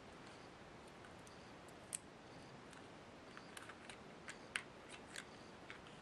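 Faint, scattered plastic clicks: a small LED-strip remote control being handled while its battery is refitted. There is a single click about two seconds in, then a quick run of light clicks near the end.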